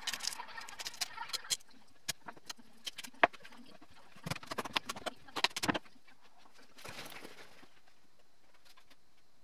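Metal spoon scraping seeds and stringy pulp out of a halved Hokkaido pumpkin: a run of short scrapes and clicks, busiest around the middle and dying down over the last few seconds.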